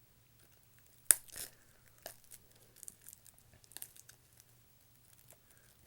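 Plastic shrink-wrap being torn and crinkled off a Blu-ray case: one sharp crack about a second in, then scattered short crackles.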